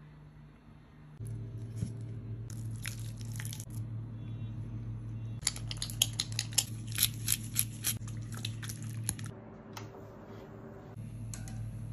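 Close-up wet handling of raw tuna eyeballs in bowls: sharp crackles and clicks, in a dense run through the middle, over a steady low hum.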